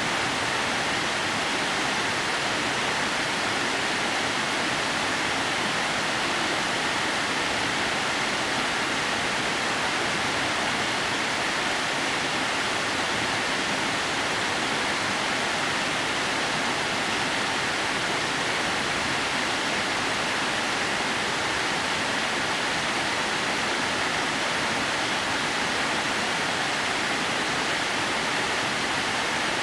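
Steady rush of a 30 m waterfall whose water spills in thin threads down a broad rock face, an even hiss with no change.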